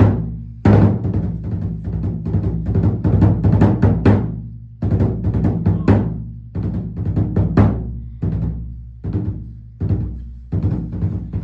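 Kagura taiko drumming: loud strokes about once a second with quicker strokes between, each leaving a low ringing tone.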